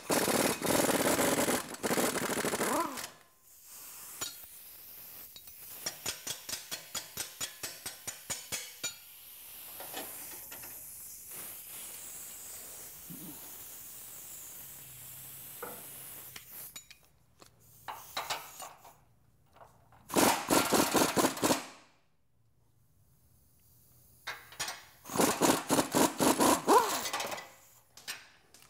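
Pneumatic impact wrench with a 21 mm socket hammering the lower control arm bolts loose on a Jeep Wrangler JK, in three loud bursts: at the start, about twenty seconds in, and again near the end. Between them come quieter runs of rapid, regular clicking.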